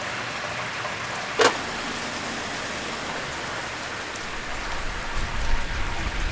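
Chicken deep-frying in hot oil, a steady sizzling hiss, with one sharp clink about a second and a half in. A low rumble comes in near the end.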